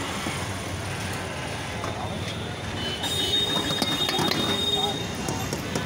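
Metal ladle scraping and clanking against a large wok as rice is stirred and tossed, with a squealing scrape and sharper clanks from about halfway, over a steady background hiss.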